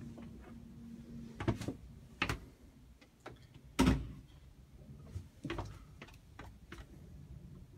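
A few scattered knocks and clicks over a low steady hum. The sharpest knock comes about four seconds in.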